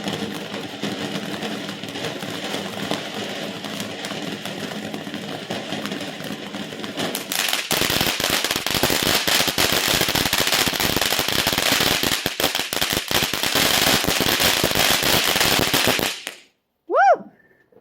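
Consumer firework cake finale: a steady hiss for several seconds. Then, about eight seconds in, a dense barrage of rapid crackling pops and bangs lasts about eight seconds and stops suddenly.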